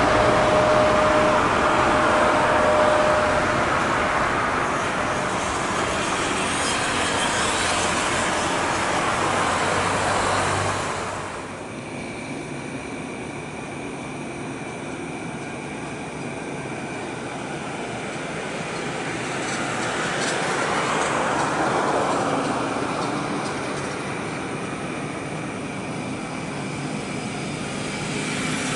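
Jet airliner engine noise, a loud steady rush with a brief whine early on, that drops off abruptly about eleven seconds in. Then the quieter jet noise of a Lion Air Boeing 737-900ER swells, eases, and grows again near the end as it heads into its takeoff.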